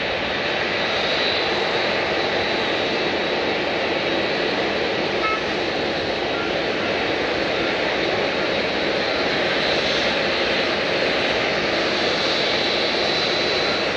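Jet airliner's engines running: a steady, loud rushing noise with a thin high whine held throughout.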